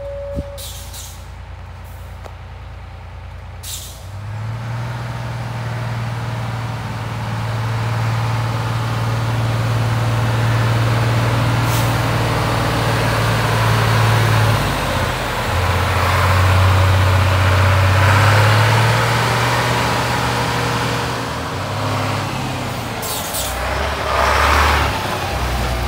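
Scania T93 concrete mixer truck's 9-litre straight-six diesel running as the truck drives up and past, growing louder, its engine note stepping down and back up several times as it changes gear and speed. Near the end there is a loud hiss of air-brake air.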